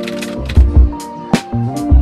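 Background music with a steady drum beat, bass line and sustained pitched notes.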